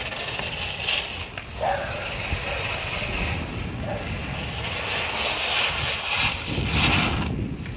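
Wind on the microphone and bicycle tyres rolling on asphalt, from riding at speed alongside stretched long-frame bicycles.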